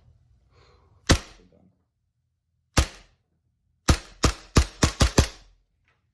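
Elite Force Glock 17 Gen 5 gas blowback airsoft pistol firing: two single shots, then a quick string of six.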